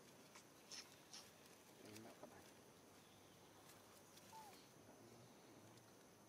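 Near silence: faint outdoor background hiss with a few soft clicks early on and one brief faint falling chirp about four seconds in.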